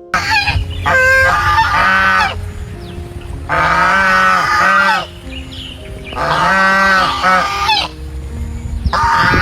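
A goose honking in four loud bouts of quick, repeated honks, over soft piano music.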